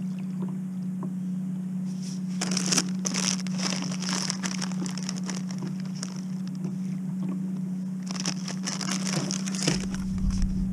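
Plastic packet crinkling as it is handled in gloved hands, in two spells of rustling, about two seconds in and again about eight seconds in, over a steady low hum.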